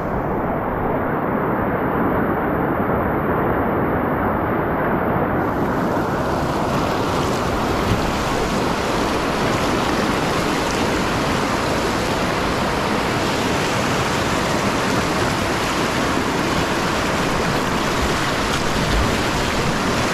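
River whitewater rushing steadily around a kayak in a rapid, close to the microphone. The sound is muffled for about the first five seconds, then clearer and brighter.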